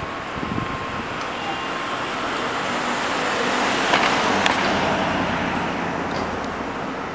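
A vehicle passing on the street: its noise swells to a peak about four seconds in and then fades, over a low steady rumble.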